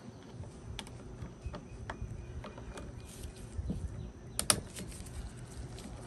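Screwdriver working out the small air-box screws on an Echo SRM-210 string trimmer: a series of light, irregular clicks and taps of metal and plastic, with one sharper click about four and a half seconds in.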